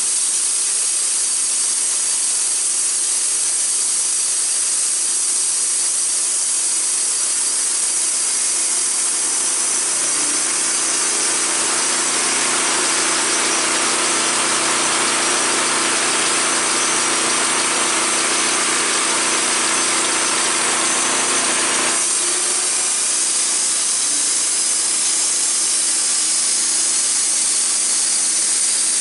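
Sawmill running steadily as its blade cuts through a red oak log. The cutting sound is fullest in the middle and eases about two-thirds of the way through while the machine keeps running.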